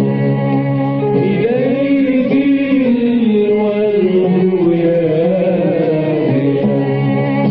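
Arabic hymn to the Virgin Mary: music with a melodic line that bends and slides in pitch over held tones.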